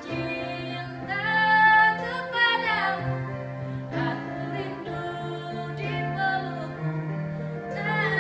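A woman singing a slow ballad solo, holding notes with vibrato, accompanied by a Roland E-50 arranger keyboard playing sustained chords and bass notes.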